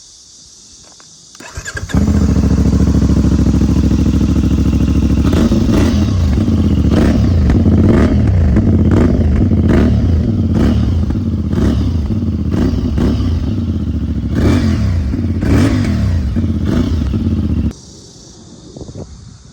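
CFMOTO 450MT's parallel-twin engine starting, idling for a few seconds, then revved in a long series of quick throttle blips before it is switched off suddenly near the end.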